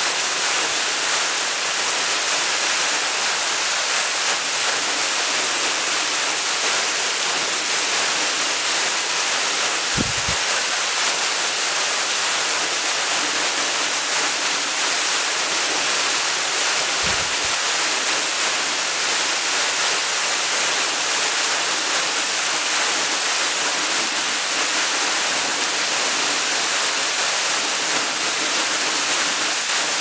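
Waterfall spilling onto rocks and a shallow pool, a steady rushing hiss. Two brief low thumps cut through it, one about a third of the way in and one just past halfway.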